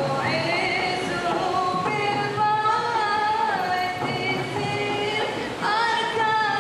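A group of women singing a nasyid, holding long notes that slide from pitch to pitch, with a hand-played frame drum beneath.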